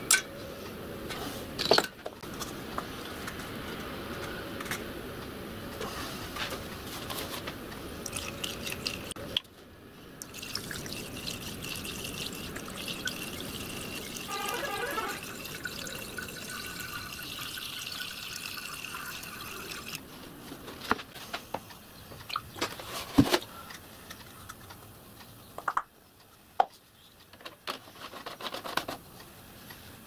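Spanner clicking on the boiler's blanking plugs as they are tightened, then water poured from a bottle through a funnel into a miniature steam locomotive boiler for about ten seconds, filling it for a hydraulic pressure test. Scattered knocks and clicks follow as a fitting is screwed into the top.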